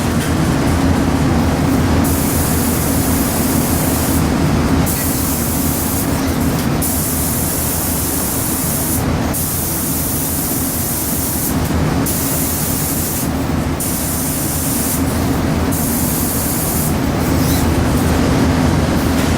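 HVLP spray guns in an automated spray booth hissing in about seven bursts of one to two seconds each, with brief gaps between them, over a steady low hum.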